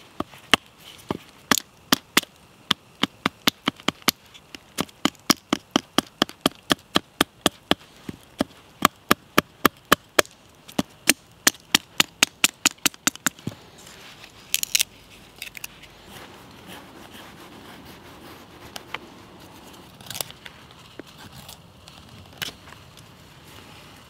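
Batoning: a wooden log baton knocking a Swiss Army knife blade down through an upright stick to split it lengthwise. There are sharp wooden knocks at about three a second, which stop about halfway through, followed by a few scattered knocks and the rustle of the wood being handled.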